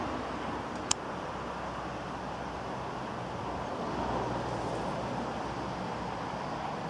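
Steady outdoor background noise with a faint low hum, and one sharp click about a second in.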